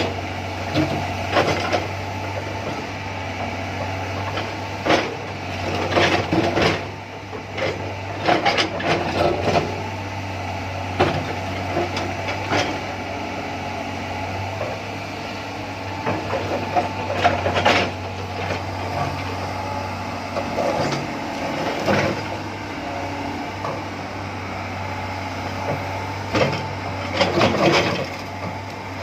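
Excavator at work: a steady engine drone with irregular clanks, knocks and scraping every second or two.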